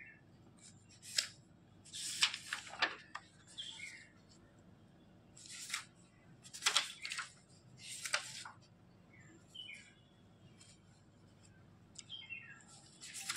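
Sheets of drawing paper rustling several times as they are handled and turned over, with small birds chirping now and then in the background.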